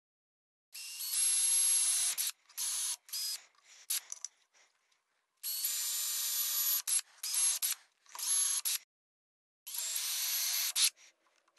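Cordless drill running in short bursts as a small bit drills holes through a white plastic strip into wood. There are three longer runs of about a second and a half, each followed by quick blips of the trigger.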